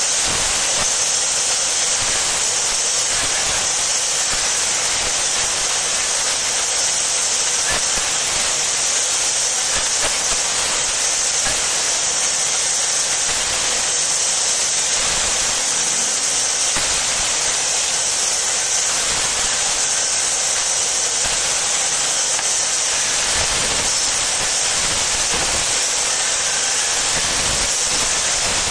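Band saw running and cutting through a block of wood, a steady hiss.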